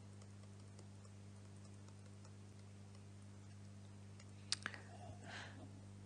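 Near silence: a steady low electrical hum, with a few faint sharp clicks about four and a half seconds in and a faint short rustle just after.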